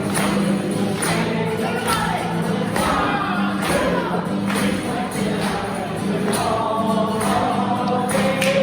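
Music: a held low drone under a wavering melody line, with percussion strikes about every second.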